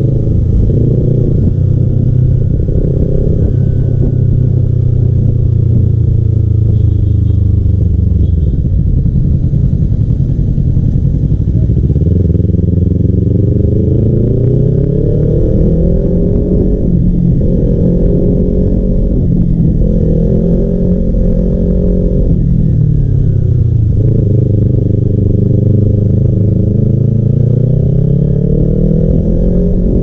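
Kawasaki Ninja 300 parallel-twin engine with a custom exhaust, heard from the rider's seat while riding. The engine note holds fairly steady at first, then from about a third of the way in it rises in pitch and drops back again and again as the throttle is opened and closed and the gears change.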